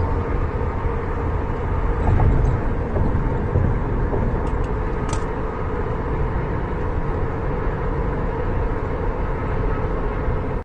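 Steady road noise from a vehicle on the move, a low rumble with a few faint clicks about halfway through.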